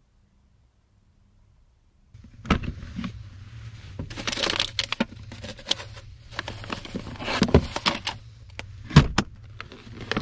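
A cooler box lid being opened and food packs and a plastic bento container handled: a run of knocks, clicks and plastic rustling starting about two seconds in, over a low steady hum.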